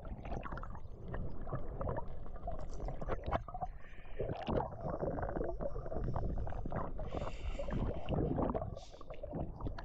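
Muffled underwater rumble and swish of water moving past a camera housing as a diver swims, scattered with small clicks and knocks.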